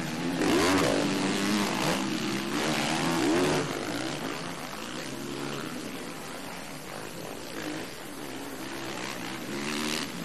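Four-stroke motocross race bike engines revving hard, the pitch rising and falling as the riders work the throttle through corners and jumps. Loudest about half a second in and again around three seconds.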